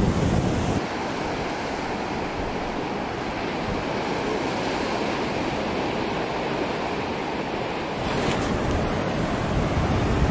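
Sea surf washing steadily against a rocky shore, with wind buffeting the microphone at the start and again about eight seconds in.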